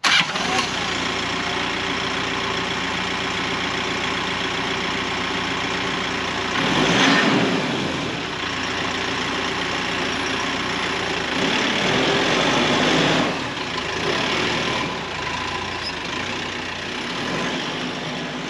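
Compact tractor's diesel engine running steadily during loader work, growing louder twice for a second or two as it works harder.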